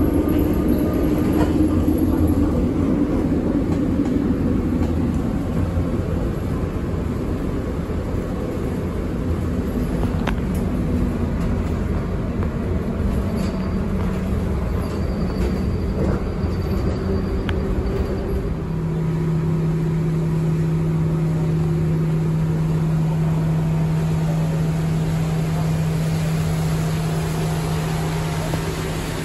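Vintage tram running on rails: a steady rumble with a few sharp clicks, and a steady low hum that comes in about two-thirds of the way through.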